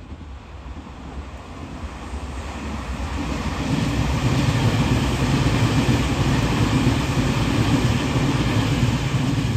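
Tobu N100 series Spacia X electric limited-express train passing on the rails: rumble and rail noise that builds over the first few seconds and stays loud from about four seconds in, then falls away near the end as the last car clears.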